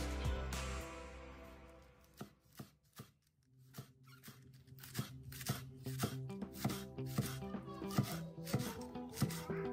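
Chef's knife finely slicing spinach leaves, each stroke knocking on a wooden cutting board. The strokes start about two seconds in and settle to about two a second.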